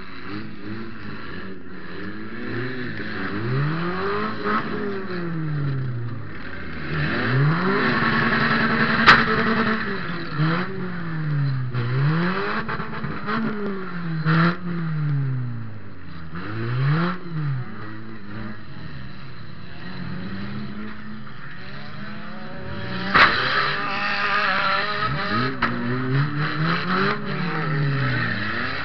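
Toyota Matrix four-cylinder engine heard from inside the stripped cabin, revving up and dropping back again and again as the car is driven hard back and forth in a demolition derby. Two sharp bangs of impacts come through, one about a third of the way in and another about two-thirds through.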